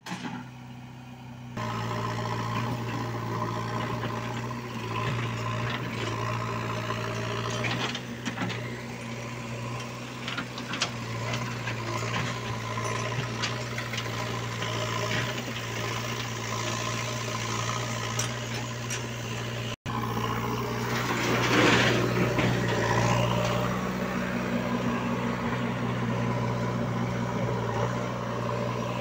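Diesel engines of a JCB 3DX backhoe loader and farm tractors running with a steady low hum, with scattered knocks and clatter. About 22 seconds in there is a louder rush of noise.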